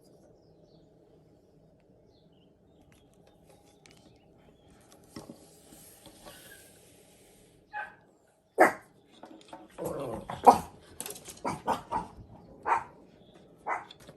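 A dog barking several times in short, sharp barks during the second half, after a quiet stretch.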